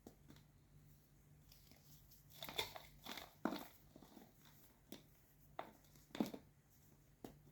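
White gym chalk being crushed, giving a series of short, irregular crunches and crumbles. The strongest cluster comes about a third of the way in, with another sharp crunch near the end.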